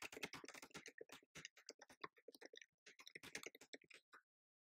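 Faint computer-keyboard typing: quick runs of keystrokes with a brief pause about two seconds in, stopping a little after four seconds.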